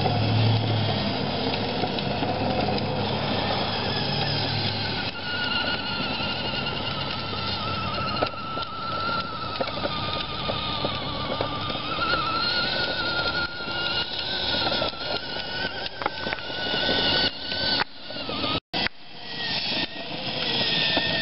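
Battery-powered ride-on toy quad's electric motor whining as it drives over concrete, its pitch wavering as it goes. The sound cuts out for an instant near the end.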